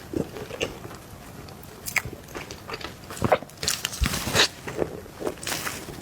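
Close-miked biting and chewing of soft cake: irregular mouth clicks and smacks, several a second.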